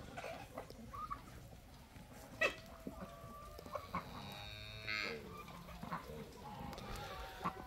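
Free-range chickens clucking and calling, short calls scattered throughout, with a louder harsh squawk about five seconds in.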